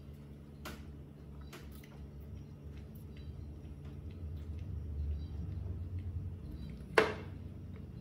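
Steady low room hum with a few faint clicks, then one sharp knock about seven seconds in: a small plastic baby bottle set down on a wooden table.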